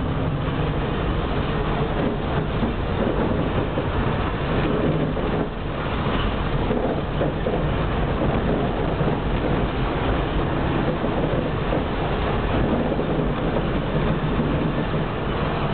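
Tram running along its track, heard from inside the car: a steady rumble with a low hum.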